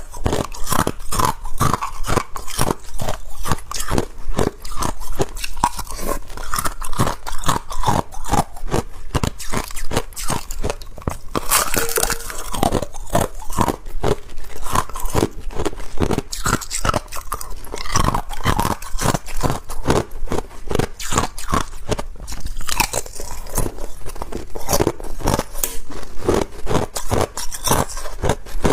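Ice being bitten and chewed close to the microphone: a steady run of sharp, rapid crunches and cracks as the ice breaks between the teeth.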